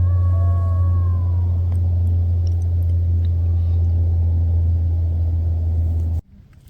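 Strong, steady low rumble of wind buffeting the microphone outdoors in winter. A faint, slightly falling high tone sounds in the first second or so, and the rumble cuts off abruptly near the end.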